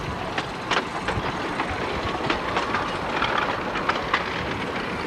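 Small 10.25-inch-gauge miniature railway carriages rolling along the track, heard from aboard. There is a steady rumble of the running train, with irregular sharp clicks and rattles of the wheels over the rail joints.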